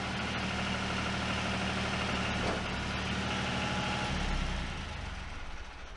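John Deere 1050 compact tractor's three-cylinder diesel engine idling steadily; its note drops and gets a little quieter about four seconds in.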